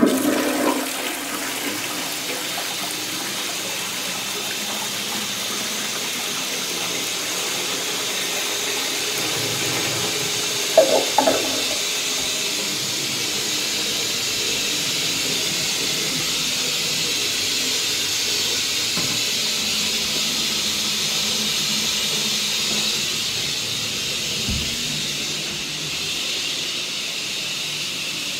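1980s Dudley Elite low-level cistern flushed by its lever, emptying into an Armitage Shanks Magnia pan. There is a sudden rush of water, followed by a long, steady hiss of water running as the cistern refills, and a couple of brief clunks about eleven seconds in.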